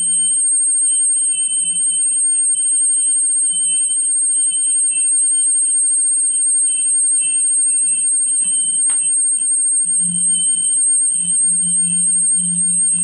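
A steady high-pitched electronic tone, with fainter lower tones that pulse on and off beneath it, and a single click about nine seconds in.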